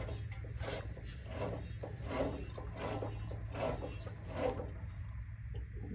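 A low engine idles steadily. Over it comes a regular series of short scuffs, about one every 0.7 seconds, that stops near the end.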